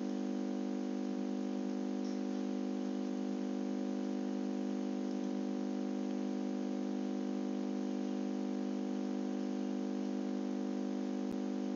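Steady hum made of many evenly spaced tones, unchanging, with one faint click near the end.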